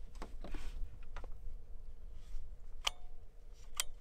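A few light, sharp clicks and taps from handling the scoped rifle and its rest on the bench while aiming. The two loudest come near the end, one with a short metallic ring. A low steady rumble runs underneath.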